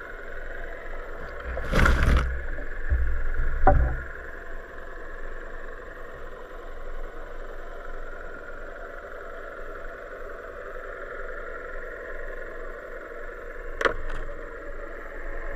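Steady engine-like drone heard underwater, with a loud rush and low thumps about two to four seconds in and a short sharp click near the end.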